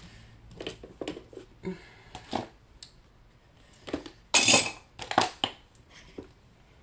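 Hard plastic craft supplies being rummaged through and knocked together: a string of light clicks and clacks, with a louder, longer burst of handling noise about four and a half seconds in.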